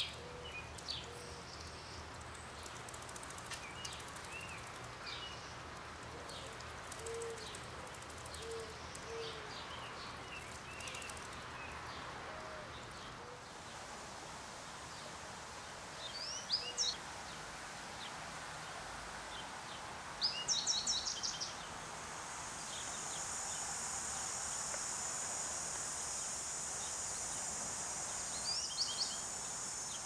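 Birds calling outdoors: scattered short chirps, then bursts of rapid downward-sweeping notes, the loudest about two-thirds of the way in. From about three-quarters of the way through, a steady high insect buzz joins.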